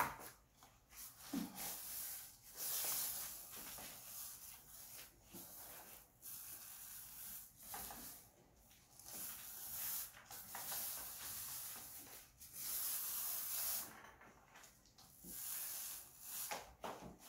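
Paint roller being pushed back and forth across a ceiling, a sticky hiss in strokes of a second or so with short pauses between them.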